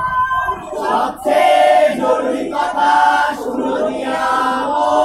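Mixed group of young men and women singing together in chorus, a chant-like song in long held phrases.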